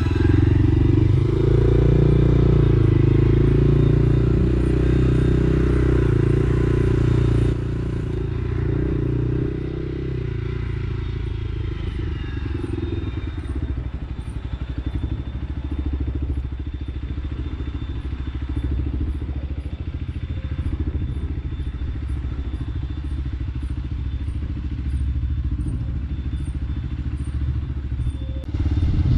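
Engine of a Buccaneer 125 motorcycle running, a loud steady drone that drops to a lower, pulsing rumble about seven seconds in.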